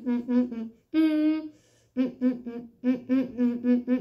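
A boy humming a tune in short repeated notes, with one longer, higher held note about a second in and a brief pause after it.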